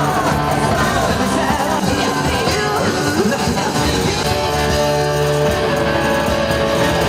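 Loud show music: long held chords and bass notes with a voice singing over them.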